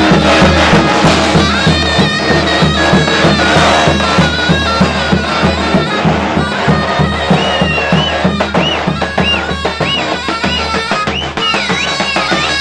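Davul and zurna playing Turkish folk music: the zurna's loud, reedy melody, with quick wavering trills and ornaments in the second half, over a steady, fast beat on the davul bass drum.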